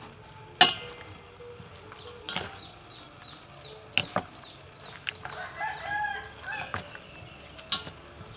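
Wooden utensils knocking against a stainless steel mixing bowl as noodles and quail eggs are tossed, several sharp knocks, the loudest about half a second in. About five seconds in, a rooster crows once for about a second and a half, with small birds chirping throughout.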